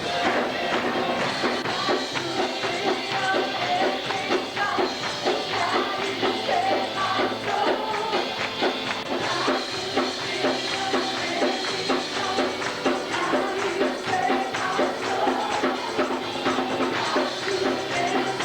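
Church service music: a band playing with a tambourine keeping a steady beat.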